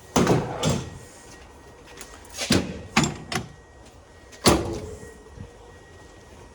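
Heavy clunks and knocks as forklift battery cells are handled and set down, about six impacts in all; the loudest comes near the end and rings briefly, like metal struck.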